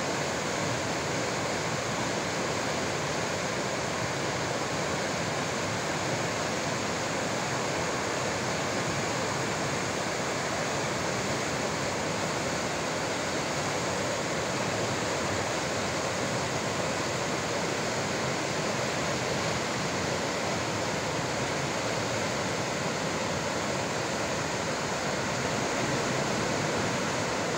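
Fast mountain river rushing through rapids over boulders: a steady, unbroken noise of whitewater.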